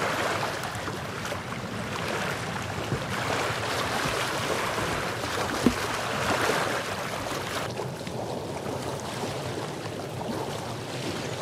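Small lake waves lapping and washing against a rocky shore, a steady wash, with one short sharp click a little over halfway through.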